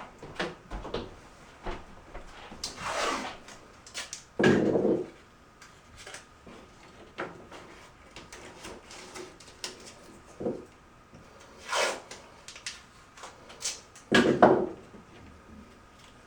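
Handling noise of tape being found and pulled off a roll: scattered clicks and short rasps, the loudest about four and a half seconds and fourteen seconds in.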